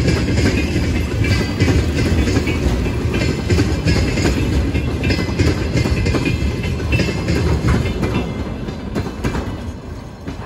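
Freight train passing, its wagon wheels clattering over the rail joints over a steady low rumble, fading near the end.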